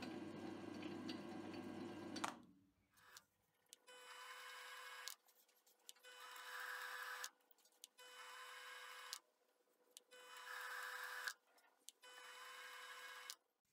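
Hobby metal lathe's motor running with a steady low hum, switched off with a click about two seconds in. After that, faint stretches of a steady tone come back about every two seconds, with silence between them.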